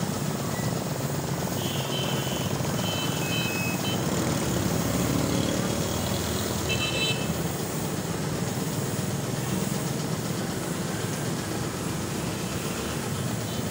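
Steady hiss of a compressed-air spray-paint gun, with an air compressor running, as red paint is sprayed onto a motorcycle fuel tank. A few brief high chirps come about two and seven seconds in.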